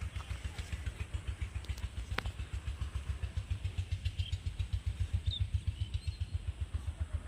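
A small engine running with a steady low thumping, about eight beats a second, with a few faint bird chirps above it.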